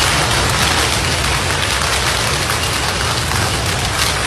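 Hailstones pelting down on hard surfaces in a hailstorm: a dense, steady clatter of many small impacts.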